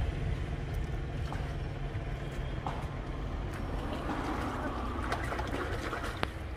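Water splashing as a hand scoops and flings water in a shallow stream, strongest about four to five and a half seconds in, over a steady low rumble.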